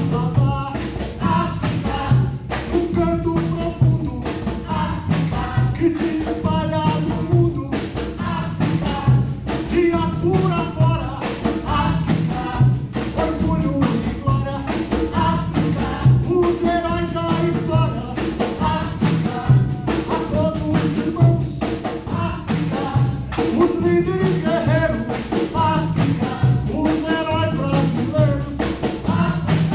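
Live Afro-Brazilian percussion ensemble: tall hand drums playing a steady, driving rhythm, with voices singing over it.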